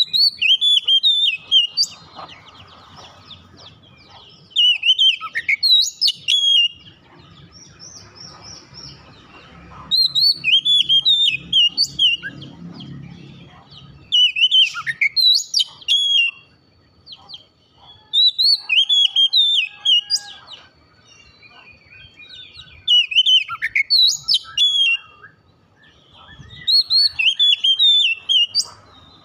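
Oriental magpie-robin (kacer) singing loud phrases of rapid, sweeping whistles and twitters. There are about seven bursts, each a second or two long, with short pauses between them.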